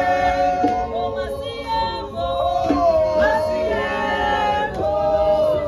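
A group of voices singing together in harmony, holding long notes that change pitch every second or so.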